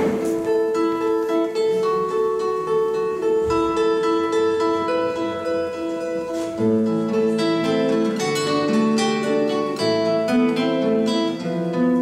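Two acoustic guitars playing an instrumental introduction, picking out a repeating pattern of single plucked notes; lower bass notes come in about halfway through.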